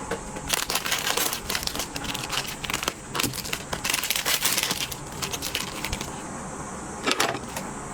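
Crunching and crackling as the crispy double-layer shell of a raspberry ice cream bar is bitten and chewed, in dense crackly bursts for several seconds and again briefly near the end.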